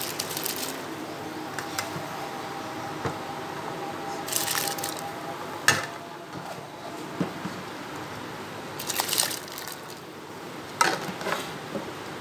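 Water poured into a steel pot of spiced stock with green chillies, in short splashing pours about four seconds apart, with a couple of sharp knocks in between.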